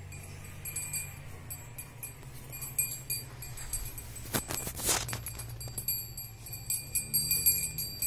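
Small bells on a cow's neck ornament jingling in short, repeated runs. There is a brief rushing noise about halfway through.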